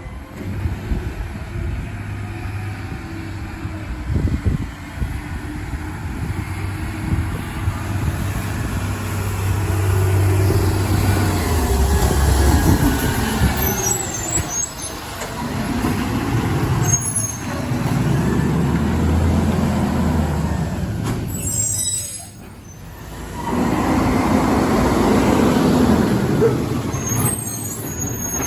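Automated side-loader garbage truck working at the curb: its diesel engine drones and surges up and down several times, with sharp air-brake hisses and metallic clanks.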